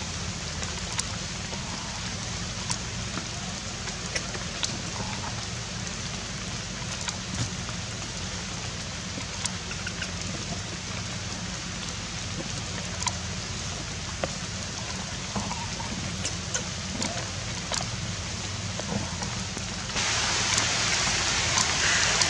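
Steady rain hiss with scattered sharp drop ticks and a low steady hum underneath; the hiss grows louder about twenty seconds in.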